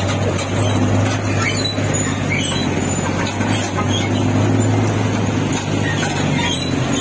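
A jeepney's engine running with a steady low hum, heard from inside the jeepney, over a background of street traffic noise.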